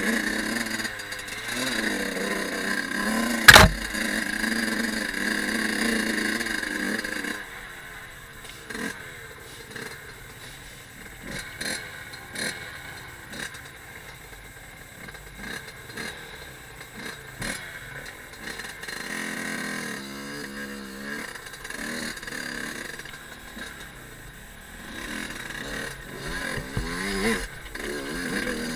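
Fantic Caballero 50's two-stroke engine running under load on a rough trail, pulling hard for the first several seconds and then quieter at low revs, with short rises in revs near the end. Frequent knocks and rattles come from the bike over rough ground, with one sharp, very loud knock about three and a half seconds in.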